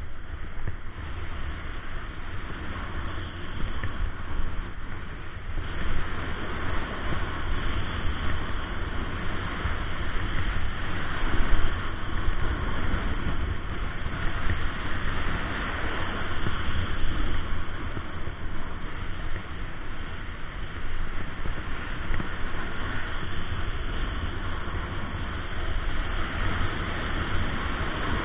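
Snowboard sliding and carving down a hard-packed groomed slope: a steady scraping hiss of the board on the snow, which grows louder about six seconds in, over a low rumble of wind buffeting the GoPro's microphone.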